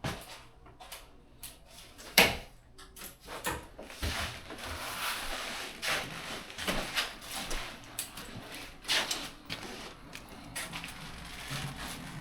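Scattered knocks and clunks with rustling, the sharpest knock about two seconds in.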